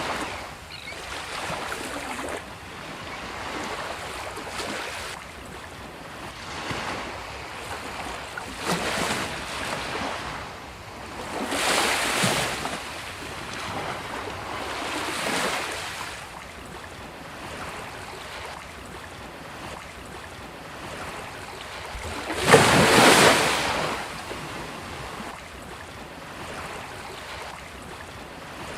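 Sea waves breaking and washing up a beach, surging in swells every few seconds, with one larger wave crashing about two-thirds of the way through.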